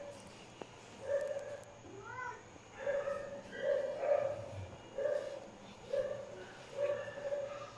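A pet animal giving short, repeated cries, about one a second, one of them rising sharply in pitch about two seconds in.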